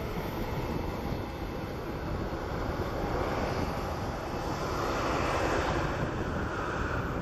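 Airbus A330-300's twin jet engines at takeoff thrust as the airliner lifts off and climbs away: a steady engine roar that swells to its loudest about five seconds in.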